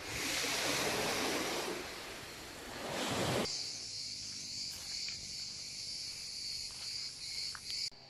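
Surf washing onto a sand-and-shingle beach for about three and a half seconds, then a sudden cut to a steady high-pitched insect chorus with a few faint ticks.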